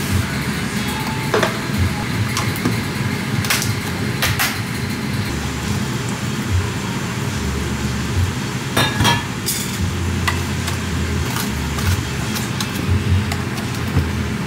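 Long metal bar spoon clinking and knocking against a plastic pitcher as iced tea powder and liquid are poured in and stirred into brewed tea: a run of scattered sharp clicks, with a cluster of them about nine seconds in.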